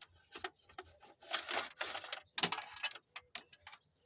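Irregular rustling and scraping of hands working at wiring in a cramped spot, with several short sharp clicks in the second half.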